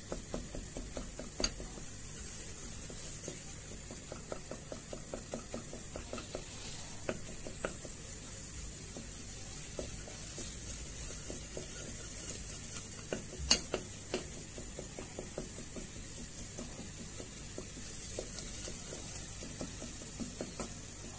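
A spoon stirring and scraping a butter-and-flour roux around a stainless steel pot, with a steady faint sizzle as the roux toasts toward light brown for béchamel sauce. There is one sharper knock about thirteen seconds in.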